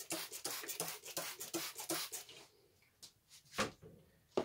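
Hand trigger spray bottle misting water onto cut tobacco in a plastic tub, a quick run of short hissing squirts for about two seconds, to moisten the tobacco before fermentation.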